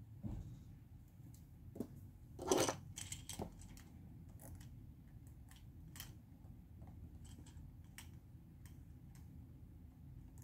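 Light clicks and taps of pens being handled on a desk: a pen set down and another picked up and readied, with a louder short clatter about two and a half seconds in and fainter ticks after.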